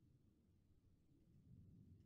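Near silence: only a faint low rumble of background noise, swelling slightly near the end.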